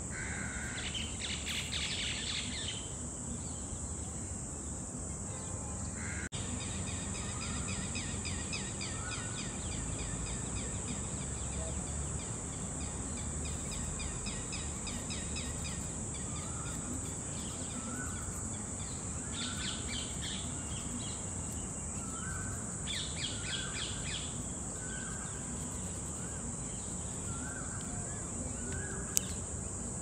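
Birds calling: a short call repeated about every second and a half through the second half, with several bursts of rapid chattering calls, over a steady high insect drone.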